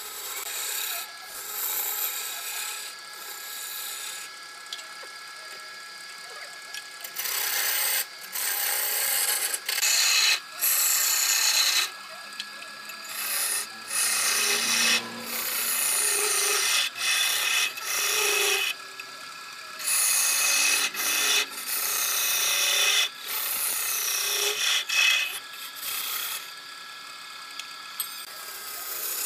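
Wood lathe at work: a hand-held turning tool cutting into spinning wood in repeated passes, a hissing scrape that starts and stops every second or so, softer at first and louder from about seven seconds in. A faint steady whine runs underneath.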